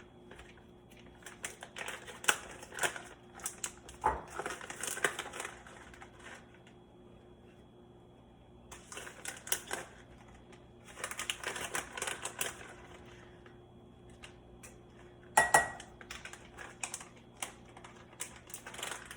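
Bacon bits being measured with a spoon and tipped into a mixing bowl: bursts of small clicks, rattles and scrapes. There is one sharp clink about fifteen seconds in.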